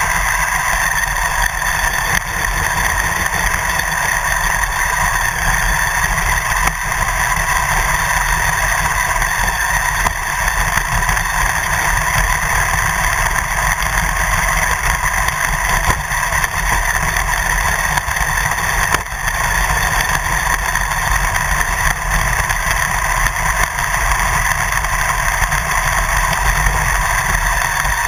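Remote-control car driving across grass, heard from a camera on its roof: a steady motor whine over a rough rumble from the bumpy ground.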